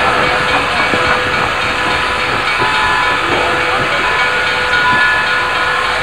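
Steam locomotive No. 3254 venting steam with a loud, steady hiss.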